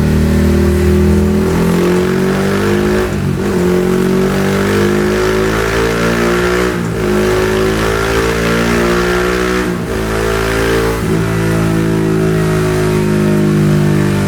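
Yamaha XSR155's 155 cc single-cylinder engine through a Yoshimura GP-Magnum full exhaust system, pulling hard. Its note climbs steadily and drops back sharply at about three gear changes, a few seconds apart.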